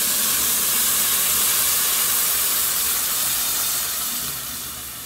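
Hot water poured from a kettle into a pot of rice and browned vermicelli frying in oil, hissing and sizzling as it hits the hot pan. The hiss eases off near the end.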